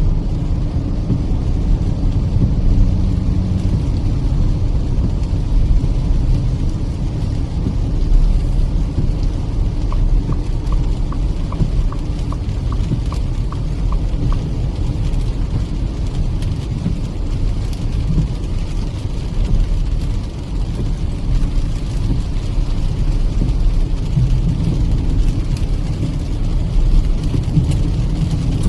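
Steady in-cabin road noise of a Kia Seltos petrol car driving on a wet highway: a low, continuous rumble of tyres and engine with a hiss of rain. Midway, a light, even ticking runs for about four seconds.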